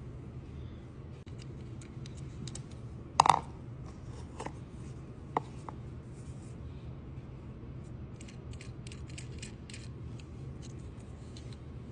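Small clicks and taps of hand tools on a die-cast toy car during a wheel swap, with one louder click about three seconds in and a run of quick light ticks near the end, over a steady low hum.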